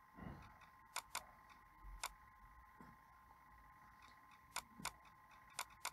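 Near silence broken by a few faint, sharp computer mouse clicks, some in quick pairs.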